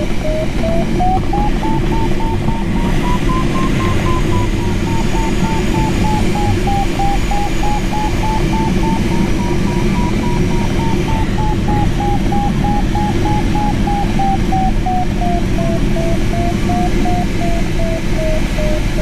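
A glider's audio variometer beeping about three times a second, its pitch rising and falling as the climb rate changes: the sailplane is climbing in lift. Under it is the steady rush of air over the canopy of a Mini Nimbus HS7 sailplane.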